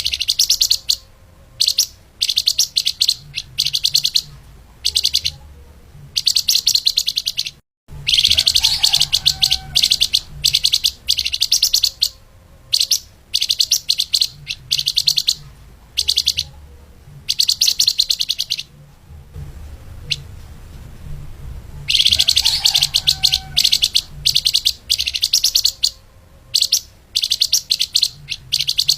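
Flamboyan (lemahan) songbird singing a fast, tightly packed chattering song, in repeated bursts of rapid high notes broken by short pauses.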